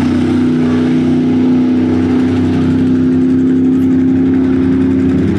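Loud truck engine held at high, steady revs, its pitch staying almost level throughout.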